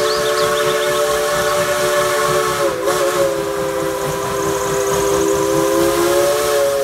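Steam locomotive whistle blowing one long blast over a hiss of steam. It sounds a chord of several notes at once, wavering briefly about three seconds in.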